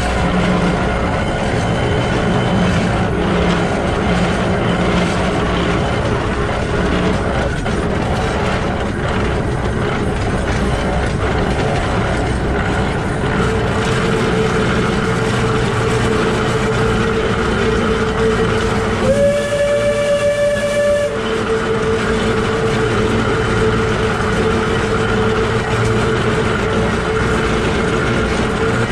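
Shay SL-31 geared steam locomotive running, with the steady mechanical noise of its truck's bevel gears, line shaft and wheels on the rail heard close up. A steady high tone joins about halfway in, and about two-thirds of the way through a steam whistle sounds for about two seconds.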